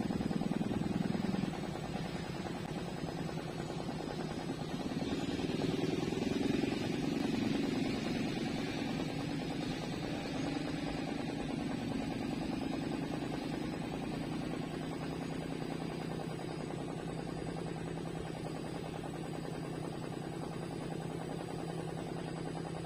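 Steady low engine drone, swelling louder between about five and thirteen seconds in.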